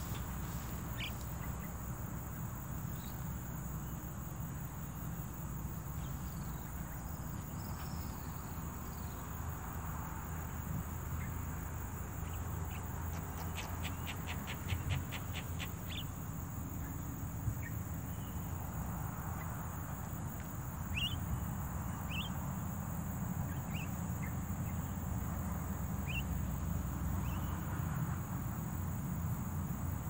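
Scattered short, rising bird chirps over a steady low background rumble, with a quick run of about a dozen clicks about halfway through.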